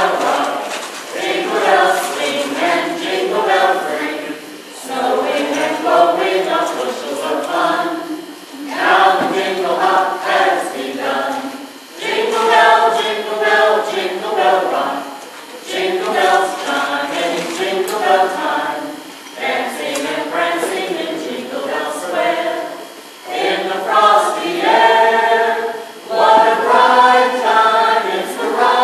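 A mixed choir of men and women carolers singing a Christmas carol a cappella, in sung phrases of a few seconds with short breaths between them.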